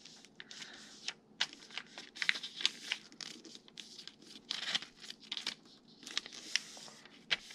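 A sheet of paper rustling and crinkling as hands fold it into a paper airplane and press along the crease, in an irregular string of short, sharp crackles.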